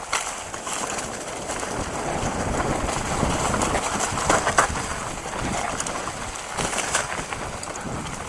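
Mountain bike riding fast down a dry dirt trail: tyres rolling over loose dirt and dry leaves, the bike rattling over bumps, with wind noise on the camera's microphone.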